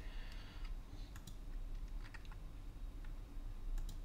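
A handful of scattered soft clicks from a computer mouse and keyboard, over a faint steady low hum.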